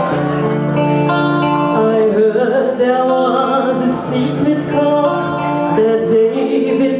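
A woman singing a song into a microphone, holding long notes over a guitar accompaniment, amplified through a PA.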